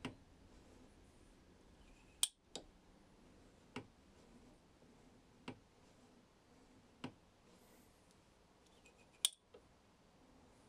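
Small metal clicks from a cutter holder on a grinding rest as the dovetail cutter is indexed tooth by tooth on its six-tooth ratchet and slid against the fence stop. A light click comes every second or two, with two sharper, louder clicks about two seconds in and near the end.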